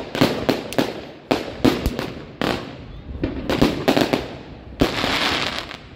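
Zena Exploding Hymir firework cake firing: a quick series of sharp bangs with crackling between them, dying down near the end.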